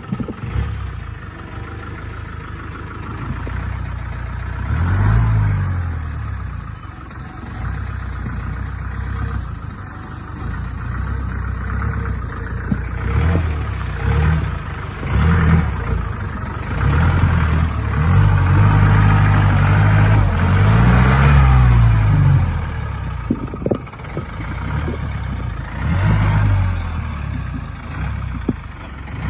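An engine idling and being revved several times, its pitch rising and falling with each rev.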